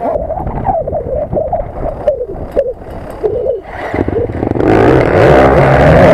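Several dirt-bike engines revving unevenly on the start line. About two-thirds of the way in the sound turns much louder and denser as the bikes accelerate hard together off the start, the nearest engine loudest.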